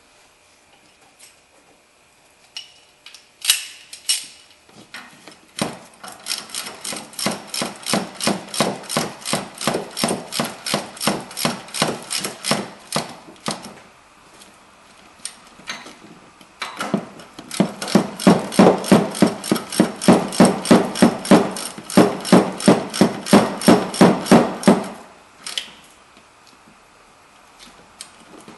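Hand ratchet wrench clicking in quick, even strokes, several clicks a second, in two long runs, as the nuts are run down on the upper ball joint's mounting bolts.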